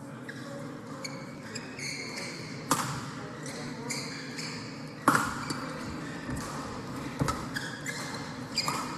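Badminton rally: sharp racket strikes on the shuttlecock, about two seconds apart, the loudest about five seconds in, with short high squeaks of court shoes on the hall floor between the hits.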